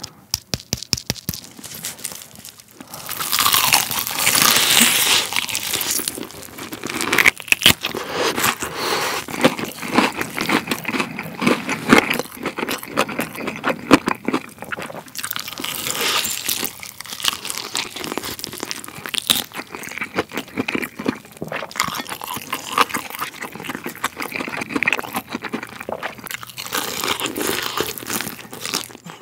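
Crispy fried chicken drumstick crust being eaten close to the microphone. First a quick run of small crackles, then from about three seconds in loud crunching bites through the crust, with chewing and many sharp crackles.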